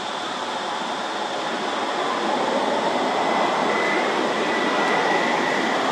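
A steady rushing noise that swells toward the middle and eases slightly near the end, with a faint thin high tone in the second half.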